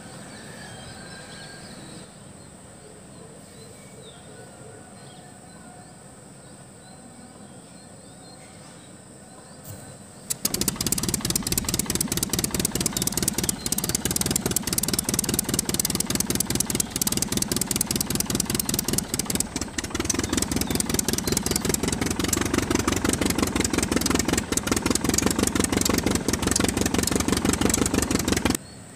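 Low steady background noise, then about ten seconds in an engine starts and runs with rapid, even firing pulses, cutting off suddenly near the end.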